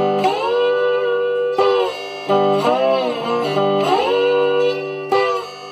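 Electric guitar in open G tuning played with a slide in a slow blues: notes glide up into pitch and ring on, a new phrase every second or two.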